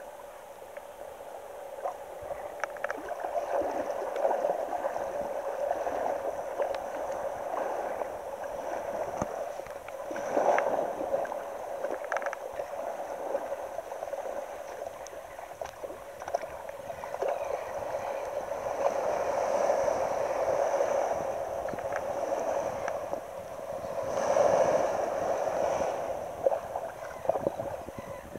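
Shallow seawater sloshing and lapping at the beach, swelling and fading every few seconds with small splashy ticks.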